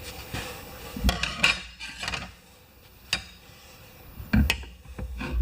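Irregular metal clanks and scrapes, about six sharp knocks, of tire-mounting tools against the steel wheel rim as a stiff new tire's bead is forced over the rim edge.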